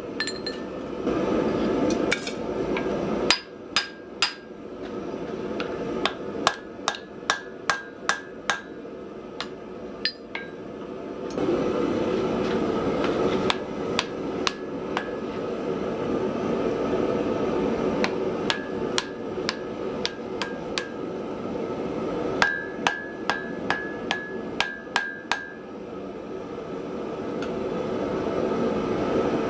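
Hammer striking metal in runs of several quick blows, many of them ringing with a clear metallic note, over a steady rushing background noise.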